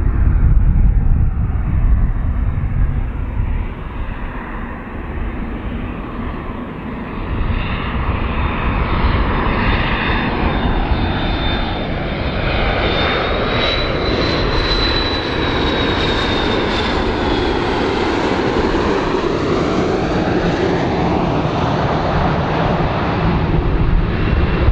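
McDonnell Douglas MD-80-series airliner on landing approach, its two tail-mounted Pratt & Whitney JT8D turbofans running with a steady rumble. A thin high whine rises and falls in the middle as the jet draws near.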